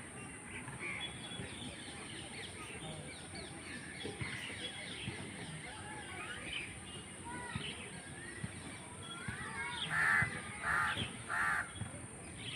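Many birds chirping together at a feeding spot, with a crow cawing three times near the end.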